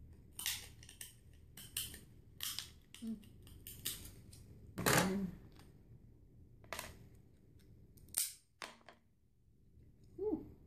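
Shell of a cooked crab cracking and snapping as it is broken open: a dozen or more sharp cracks at irregular intervals, the loudest about five seconds in.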